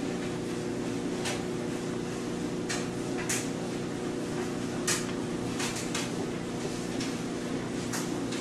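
Steady low hum with about eight brief rustles and clicks as a hardcover textbook is held and handled, the strongest about five seconds in.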